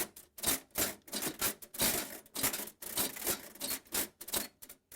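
Brass multiplication unit of a Millionaire mechanical calculator being shifted and turned by hand. Its levers click and clatter against the brass multiplication table in an irregular run of sharp metallic clicks, about three a second.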